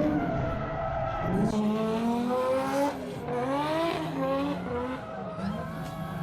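Drift car engine revving up and falling back repeatedly over tyre squeal as the car slides through a corner.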